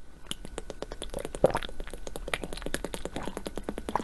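Water bubbling and splashing sound effect: a quick run of small pops and drips, with a louder splash about a second and a half in.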